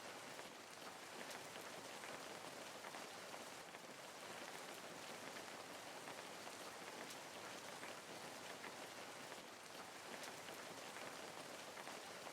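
Steady rain, a soft even hiss full of fine patter of individual drops landing on a surface.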